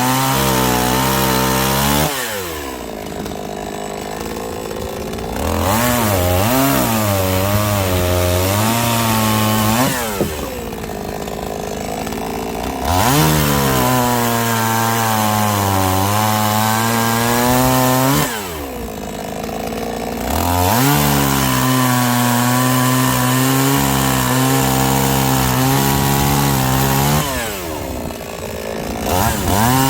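Chainsaw cutting firewood in repeated cuts, about four in all. In each cut the engine runs at full throttle with a rushing chip noise. Between cuts the hiss stops and the engine pitch dips, then revs back up for the next cut.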